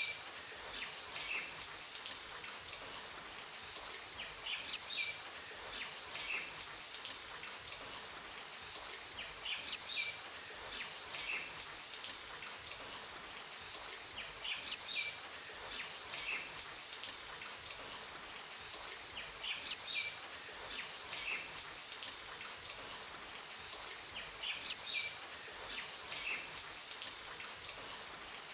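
Steady rain hiss with short bird chirps that recur in the same pattern about every five seconds: a looped rain-and-birdsong ambience track.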